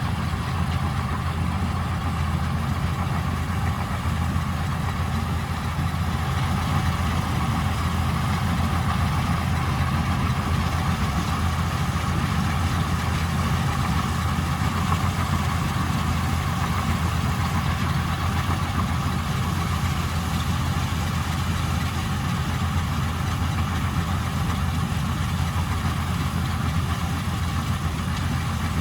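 Vistula KZB-3B combine harvester running steadily while harvesting grain: an even engine drone with a mid-pitched machinery hum over it.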